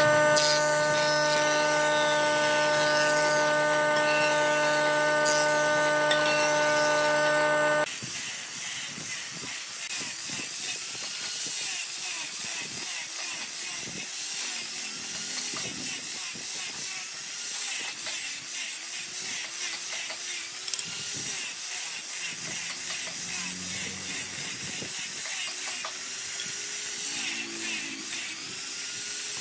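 A small angle grinder with a sanding disc sanding a curved wooden chair leg: a dense rasping with a whine that dips and recovers as the disc is pressed into the wood. For about the first eight seconds a steady machine hum plays instead, cutting off abruptly.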